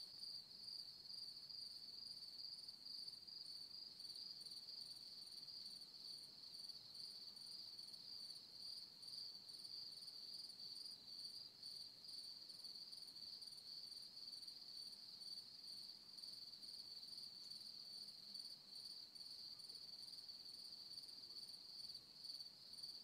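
Crickets chirping in a faint, steady high-pitched trill.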